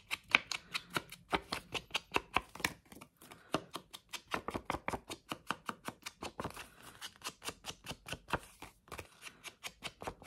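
Ink blending tool with a round foam head dabbed again and again against the edges of a paper journaling card to ink them, quick irregular taps about five a second.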